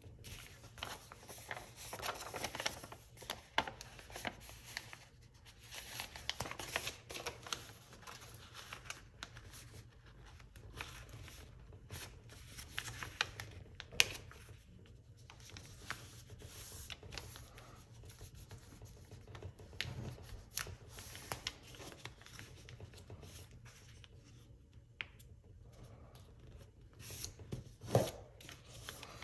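A sheet of paper being folded by hand: irregular rustling, sliding and crackling of the paper as the creases are pressed flat, with a few sharper snaps.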